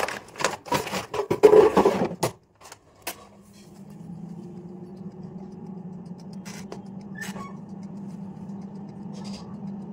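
Frozen snacks rattling and rustling as they are tipped from a plastic packet into an air fryer basket, then a single click. About three and a half seconds in, the air fryer's fan starts and runs with a steady hum.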